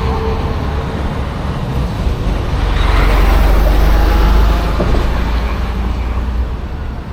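Road traffic rumbling past, with one vehicle swelling louder from about two and a half seconds in and fading after about four and a half seconds.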